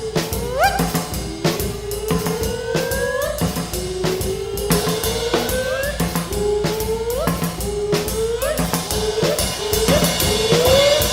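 Background music: a drum-kit beat with snare and bass drum under a lead melody of held notes that bend upward at their ends.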